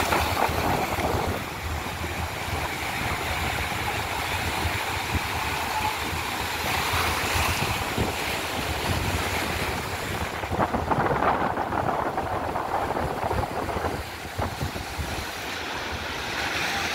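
Sea surf washing and breaking against the boulders of a rock seawall, a steady rushing wash, with wind buffeting the microphone.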